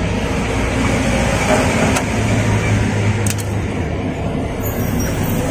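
A motor vehicle engine running steadily, a low hum that swells a little about two to three seconds in, with two brief clicks.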